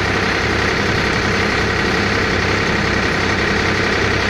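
A tractor-driven Deepak threshing machine running, together with the Powertrac tractor's diesel engine that powers it, in one steady unbroken sound.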